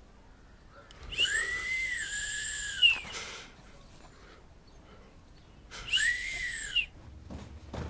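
A person whistling breathily twice: a long high note that rises and dips, then a shorter one about three seconds later.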